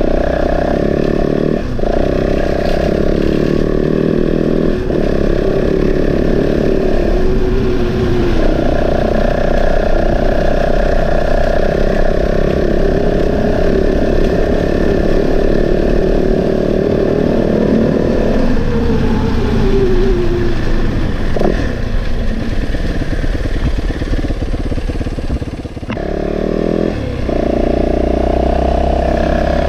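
2024 Yamaha WR450F's 450 cc single-cylinder four-stroke engine running under way, its note rising and falling with the throttle. A little past the middle the pitch falls away as the rider rolls off, and near the end it dips briefly before picking up again.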